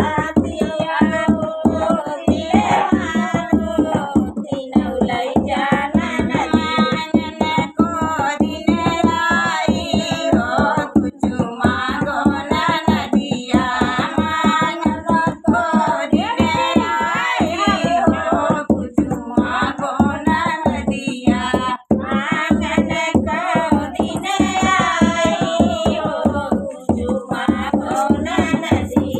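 A woman singing an Awadhi folk song (uthan geet) in full voice, keeping time on a dholak, a two-headed barrel drum struck with the hands in a quick steady beat.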